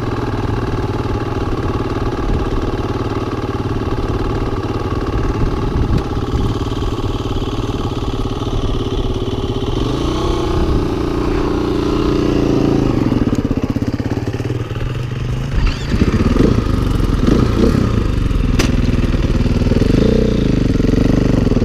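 Dirt bike engines idling, the nearest a KTM 500 EXC's single-cylinder four-stroke, then that engine revs and the bike pulls away and accelerates about two-thirds of the way through.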